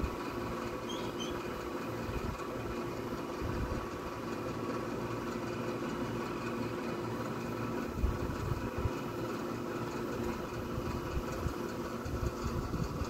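A steady mechanical hum with several held tones, and now and then low thumps, like wind or handling on the microphone.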